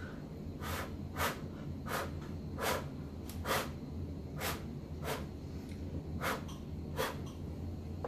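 A person blowing short, sharp puffs of breath by mouth onto wet acrylic paint to push it across the panel, about nine puffs at roughly one a second. The paint is thick and will not move on its own.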